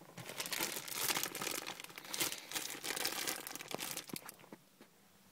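Packaging rustling and crackling as a new cabin air filter is pulled out of its wrapper, dying away about four and a half seconds in.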